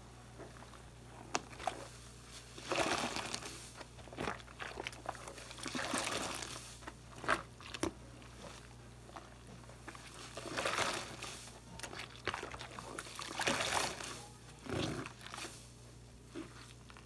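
A soapy sponge squeezed and swished in foamy water: a string of wet squelches and splashes every second or two, with short pauses between.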